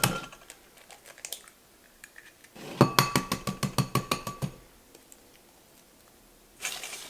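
Eggs being cracked on the rim of a glass bowl: a quick run of sharp taps and shell cracks with a glassy ring about three seconds in, and another short crack near the end.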